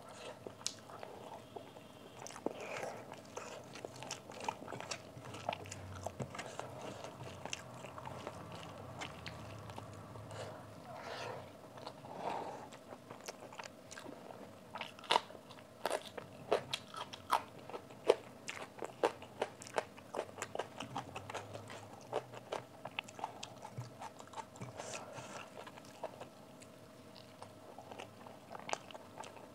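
Close-miked eating: crisp crunching bites and chewing of papad and a raw green chilli, with wet mouth sounds. The sharp crunches come thickest and loudest in the middle of the stretch.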